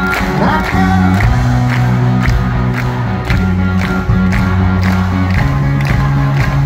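Live country band playing an instrumental passage with a steady drum beat, sustained bass notes and electric guitar, with a crowd cheering along.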